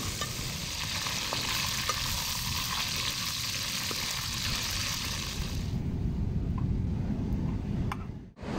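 Fish pieces frying in hot oil in an aluminium pot over a wood fire: a steady sizzle, with a metal spoon stirring them and ticking against the pot. The sizzle stops about six seconds in, leaving a low rumble, which cuts out briefly near the end.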